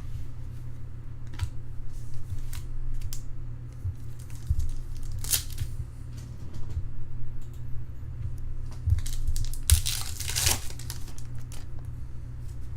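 Trading card pack wrappers crinkling and tearing, with small handling clicks and two louder rips about five and ten seconds in, over a steady low electrical hum.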